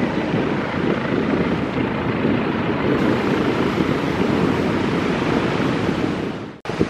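Jet airliner engines at take-off thrust, heard close: a loud, steady rush of noise that cuts off suddenly near the end.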